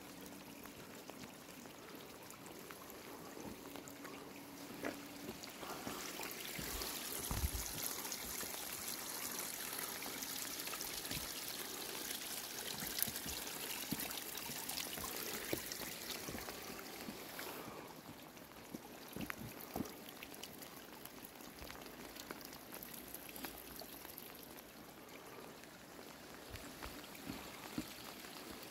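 Mountain water trickling and running over wet rock. It grows louder for about ten seconds and then drops away suddenly, with occasional light knocks.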